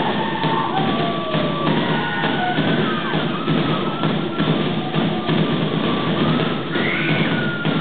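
Fast, steady Polynesian drumming of the kind played to accompany a fireknife dance, with high sliding calls rising and falling over it.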